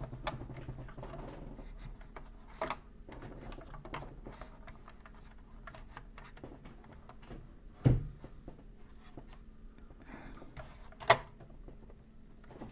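Plastic toy handling: small clicks and rubbing as an action figure is fitted into a toy starfighter's cockpit. There is a dull knock about eight seconds in and a sharp click about three seconds later.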